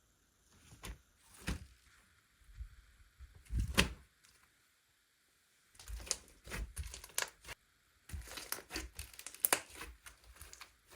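Slime being squished and worked by hand, giving bursts of sticky clicks and crackles. A few pops come in the first four seconds, then denser clusters after a pause about five seconds in.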